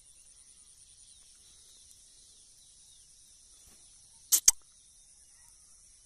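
Faint, steady high-pitched trilling of insects with a fine, even pulse. About four seconds in come two sharp clicks in quick succession, the second one louder.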